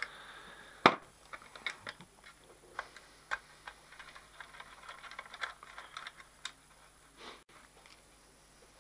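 Scattered small plastic clicks and taps as the plastic cover and keypad of a Huanyang inverter drive's housing are handled and pulled away, with one sharp click about a second in.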